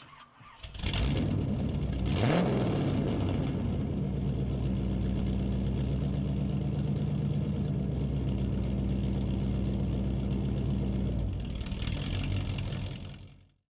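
An engine rising in pitch once about two seconds in, then running steadily and fading out near the end.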